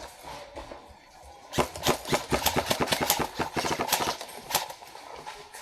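Airsoft guns firing a rapid string of shots, several a second, starting about one and a half seconds in and stopping about three seconds later.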